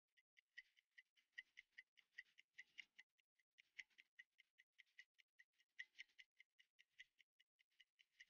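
Faint, fast, even ticking of a clock-like timer, about five ticks a second, with a few soft rustles underneath.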